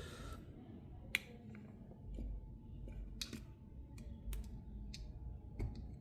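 A handful of sharp little clicks and taps, spread out irregularly, from small cell phone parts being handled and pressed into place during reassembly.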